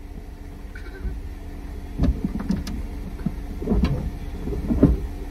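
A steady low rumble inside a parked car. From about two seconds in come several dull thumps and short, faint bits of voice.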